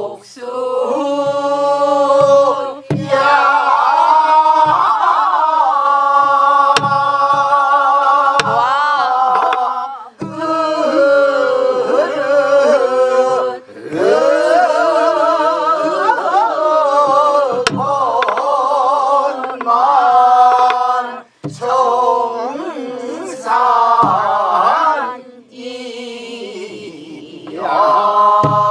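A Korean Namdo folk song sung by a woman and her class, with wide, wavering vibrato and sliding pitches. It is punctuated by sparse strokes on buk barrel drums.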